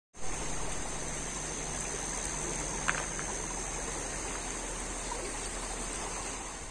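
Shallow river water rushing and rippling steadily over its bed, with one short high chirp about three seconds in.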